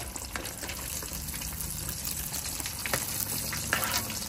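Breaded carp pieces deep-frying in hot oil, sizzling and crackling steadily, with a few louder pops about three seconds in.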